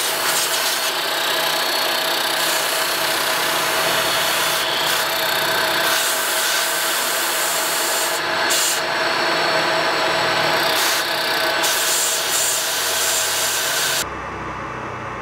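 Milling machine running, its end mill cutting a slot into a brass sword-guard blank: a steady, dense cutting noise over the hum of the motor. About fourteen seconds in it stops abruptly, leaving a quieter low hum.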